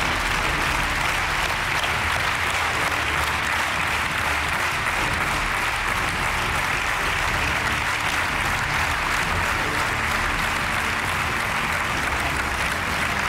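Studio audience applauding steadily, a dense even clapping from a large crowd.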